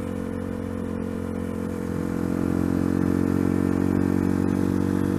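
Sinnis Apache 125's single-cylinder engine running at steady revs while under way, with road and wind noise, growing a little louder about two seconds in.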